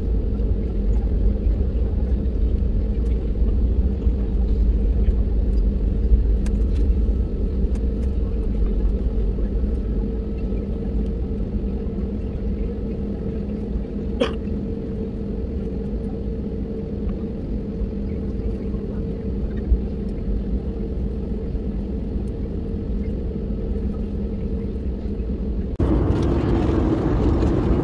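Steady drone of an airliner cabin: engine and airflow noise with a constant hum, one short click about halfway, and a shift to a louder, brighter rush near the end.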